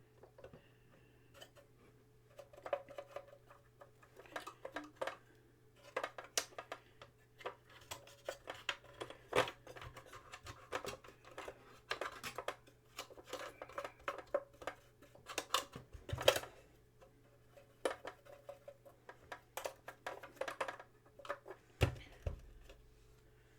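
Cotton bud scrubbing and poking around inside a Commodore Datassette tape deck: irregular scratchy rubbing with many small clicks and taps against the plastic and metal of the mechanism, and a sharper knock about two-thirds of the way through.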